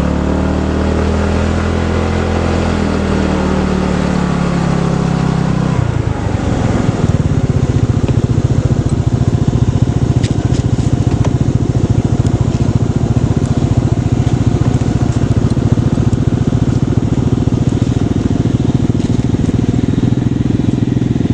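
Vehicle engine running on the move, its pitch rising and then falling over the first six seconds, then settling into a steadier, rougher and slightly louder drone.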